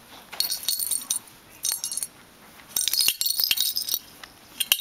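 Small metal bell inside a plastic cage toy jingling in several bursts as a rabbit noses and tosses it about.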